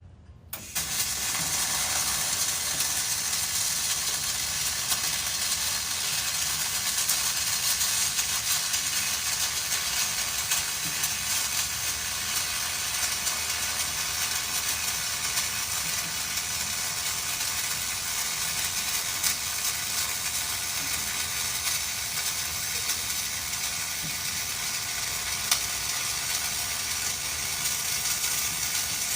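Flux-core wire-feed welding arc crackling and sizzling steadily as a bead is run, the arc striking about half a second in.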